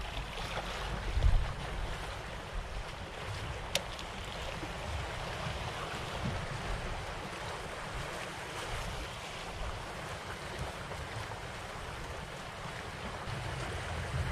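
Sea waves washing and splashing among the concrete tetrapods of a breakwater, with wind buffeting the microphone. A single sharp click about four seconds in.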